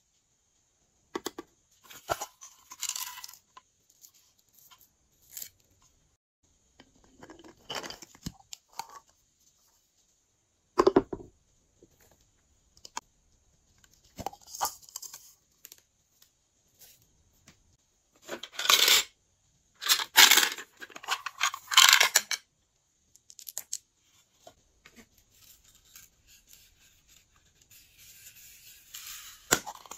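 Glossy slime being squished and mixed by hand, heard as scattered short bursts of crackling noise a second or two long, with quiet gaps between them; the loudest bursts come a little past the middle.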